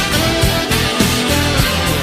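Recorded music with a steady drum beat.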